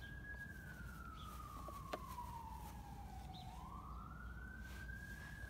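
Faint wailing siren of an emergency vehicle: one tone falls slowly in pitch, then rises again about three and a half seconds in.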